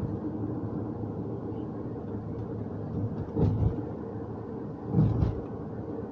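Steady road and engine drone inside a moving car's cabin, with two short low thumps about three and a half and five seconds in.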